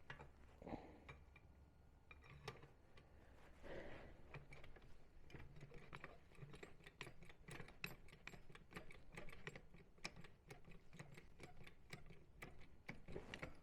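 Faint, rapid, irregular clicking of a hand tool working a wheel's lug nut, thicker in the second half, with a few single knocks early on.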